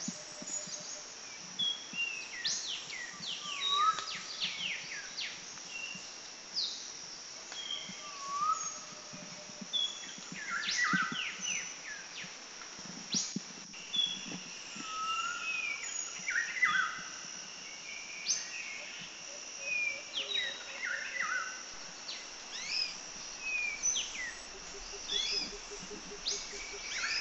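Birds chirping and whistling, many short sweeping calls one after another, over a steady high hiss.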